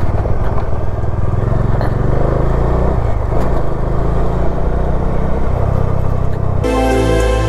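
Bajaj Dominar 400's single-cylinder engine running steadily while riding, its note dipping briefly about three seconds in. Near the end the sound cuts abruptly to background music.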